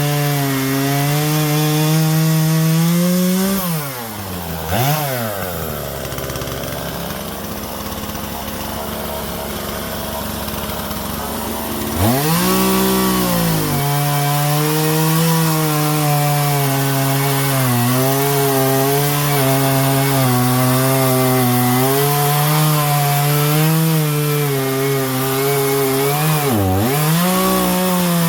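Two-stroke chainsaw, a Husqvarna 120 Mark II fitted with a new Hipa chain, running at high revs while cutting wood. About 4 s in it drops to a low idle, and about 12 s in it revs back up and cuts on, with one brief dip in revs near the end.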